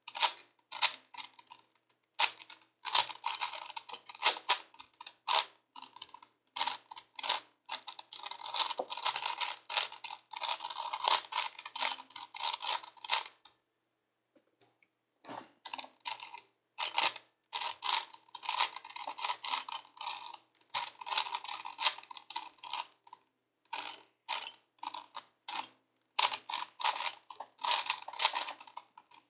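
Hand-turned 5x5x5 Rubik's cube: runs of rapid plastic clicking and rattling as the layers are turned, broken by short pauses, the longest about two seconds near halfway.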